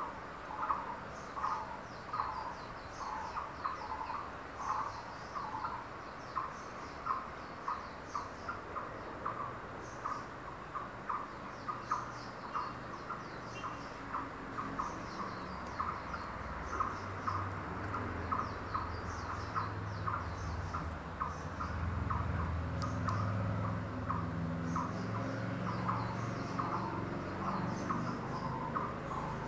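A bird calling with short repeated notes, about two a second, over forest ambience. From about halfway a low rumble rises beneath it and a thin, steady high tone joins it.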